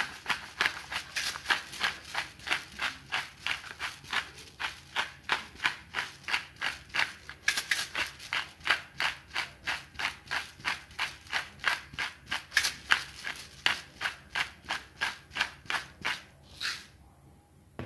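Hand-held pepper grinder grinding black peppercorns, twisted over and over in a steady run of grinding strokes about three a second, stopping shortly before the end.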